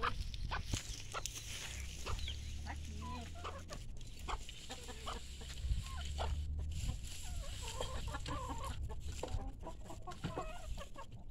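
A flock of chickens clucking in short, scattered calls as they peck at a heap of freshly pulled grass.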